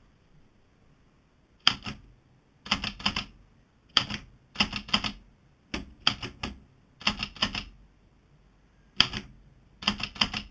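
Olivetti typewriter being typed on: keys strike in quick bursts of two to five clacks with short pauses between, starting after nearly two seconds of quiet.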